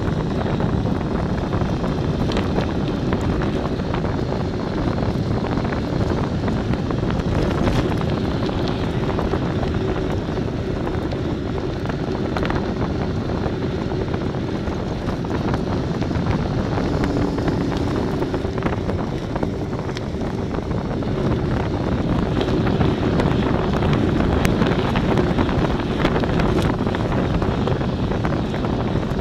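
Wind rushing over the microphone of a camera moving along a paved road, a steady noise with a faint constant hum underneath.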